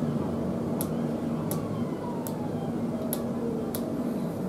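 Five short, high scratches as a mark is made on a primed detailing strip held against a model tunnel portal, over a steady low hum and a faint tone that falls in pitch midway.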